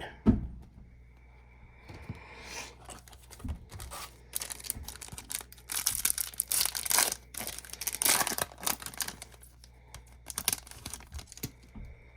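Crinkling and rustling of a foil trading-card pack wrapper and cards being handled, in irregular spells that are loudest in the middle.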